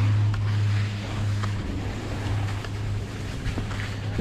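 Skis sliding and scraping over hard-packed, icy snow, with wind on the microphone and a steady low hum underneath.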